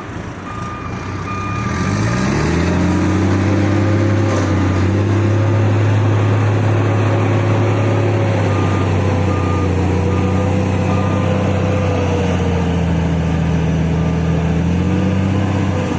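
Heavy diesel engine revving up about two seconds in, then running hard and steadily under load, while a reversing alarm beeps steadily and fades out about halfway through.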